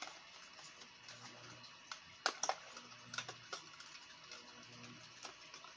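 Small sharp clicks and light crackling of a clear plastic lure package being handled and opened, with a cluster of louder clicks a little past the middle.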